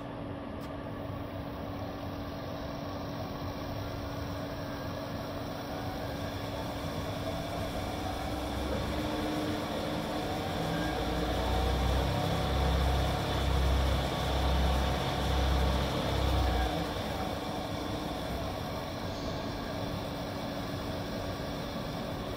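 Cyclematic CTL-618EVS tool room lathe's variable-speed spindle running as its speed is turned up to about 3000 RPM and back down. The running sound grows louder over the first half, with a slow low throb about once a second at the top speed, then eases off about three-quarters of the way through over a steady hum.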